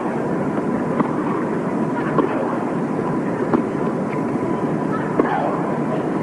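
Large tennis crowd applauding, a steady wash of clapping with a few sharper claps standing out.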